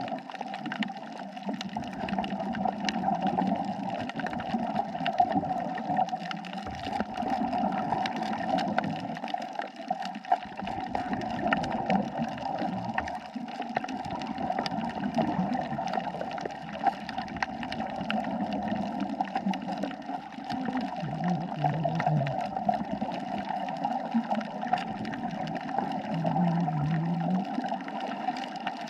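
Underwater water noise: a steady watery hum with many faint clicks crackling through it, rising and falling slowly in loudness.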